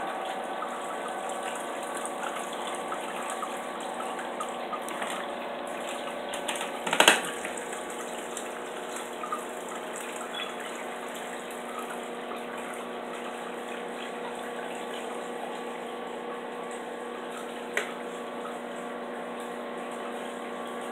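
Reef aquarium's circulation pumps and running water: a steady hum with a constant wash of moving water. A single sharp knock about seven seconds in, and a fainter one near the end.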